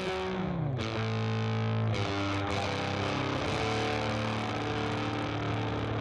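Distorted electric guitar played through a home-built Harmonic Percolator fuzz pedal fitted with a 2SB175 germanium transistor: a quick downward slide, then a chord left to ring, struck again about two seconds in.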